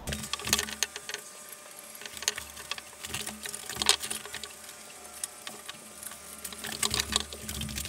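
Irregular light clicks and rustles of someone handling things and moving about close by.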